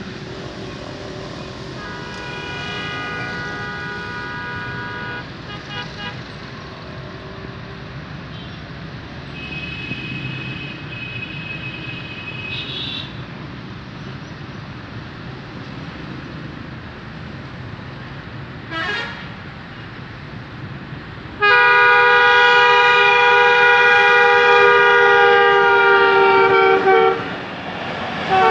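Diesel locomotive horn of a Pakistan Railways ZCU-20 sounding as the train approaches. It gives two faint, distant blasts in the first half, then a much louder long blast about three-quarters through. That blast cuts off and starts again near the end as the train draws close, over steady background noise.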